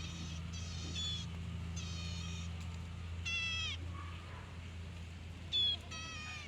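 Ashy prinia calling: about six short, high pitched call phrases, each lasting well under a second, with short gaps between them. A steady low hum runs underneath.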